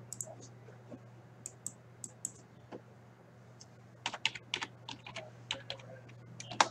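Typing on a computer keyboard: a few scattered key clicks, then a quicker run of keystrokes starting about four seconds in.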